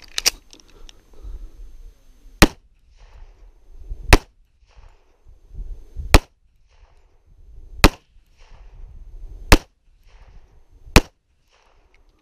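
Pistol shots fired weak-hand only at a slow, deliberate pace: six loud shots about every one and a half to two seconds, after a softer report right at the start.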